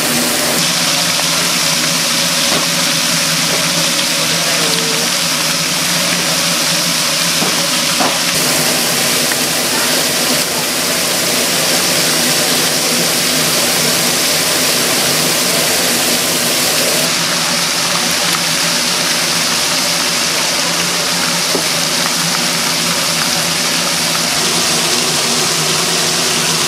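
Steady mechanical hum with a constant hiss over it from the fish-grilling stall's equipment, with a few light clicks and knocks.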